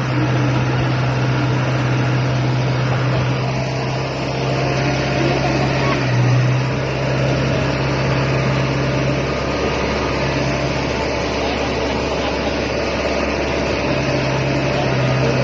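Rice combine harvester running steadily: a constant low engine drone under a wash of machinery noise.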